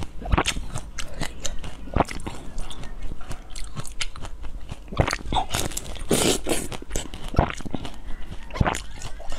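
Close-up eating sounds of a person biting into and chewing a peeled orange: irregular sharp, wet clicks of bites and chewing, busiest about six seconds in.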